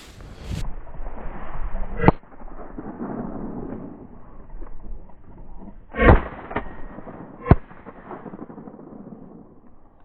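Three shotgun shots at a flushed rooster pheasant: one about two seconds in, the loudest about six seconds in, and a third a second and a half later, over wind noise on the microphone.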